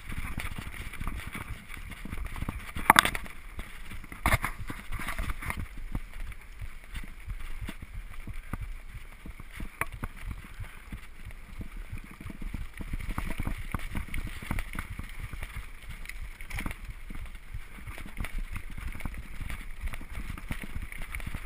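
Gary Fisher HiFi Pro Carbon mountain bike rolling fast down a bumpy dirt trail: tyre noise and a steady rattle of the bike over the rough ground, with wind rumbling on the camera microphone. There are two sharper knocks about three and four seconds in.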